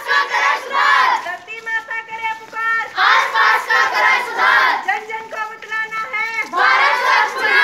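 A group of marching schoolchildren and women chanting slogans, a leading voice calling out a line and the group shouting it back in loud bursts every couple of seconds.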